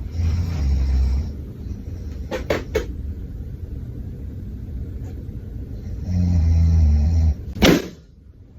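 A person snoring, two long low rattling snores about six seconds apart, then a single sharp, loud balloon pop near the end.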